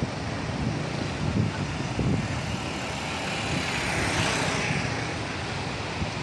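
Road traffic with motorcycle engines passing, one going by close about four seconds in.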